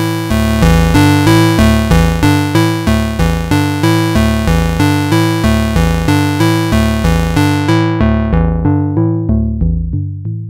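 Moog Subharmonicon analog synthesizer playing a repeating step-sequenced pattern of short, decaying notes, about three a second. From about eight seconds in, the low-pass filter cutoff is turned down and the tone grows dull as the highs drop away.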